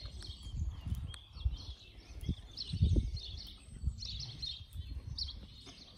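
Small birds chirping and singing in the trees, with irregular low rumbles over them, the strongest about two and three seconds in.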